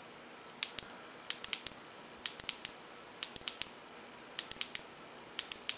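Tail-cap clicky switch of a Maratac 2AA flashlight, clicked repeatedly in quick clusters of about four clicks, roughly once a second. The clicks are the double-clicks that cycle the light through its three brightness levels.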